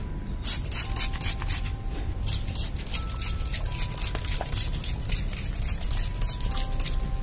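Hand trigger sprayer misting chili plant leaves, squeezed again and again: a rapid run of short hisses, several each second.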